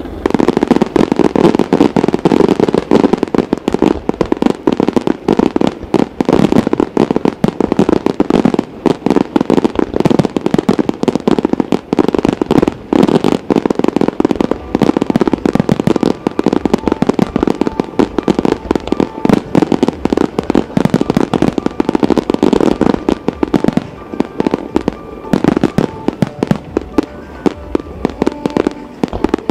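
Starmine fireworks display firing a dense, unbroken barrage of shell bursts and bangs, many per second.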